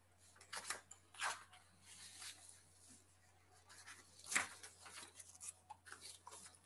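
Faint, irregular rustling and scraping noises, several short ones with the loudest about four seconds in, over a low steady hum.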